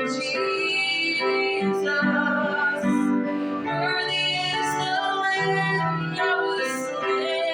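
Worship song: a woman singing a sustained melody over keyboard accompaniment.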